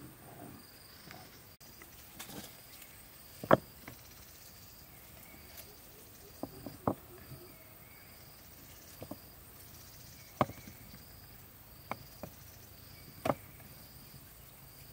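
An insect chirps faintly and steadily, about once a second. Over it come scattered sharp knocks and taps, the loudest about three and a half seconds in.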